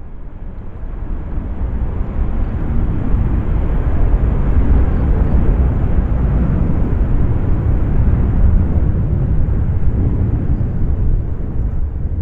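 Jet airliner's engines rumbling as it passes close by, building over the first few seconds and easing off near the end.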